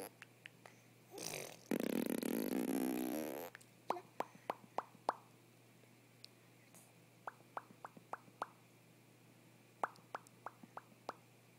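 A baby blowing a buzzing raspberry through her lips, then making runs of little lip pops, about four to five a second, in three bursts of five or six pops each.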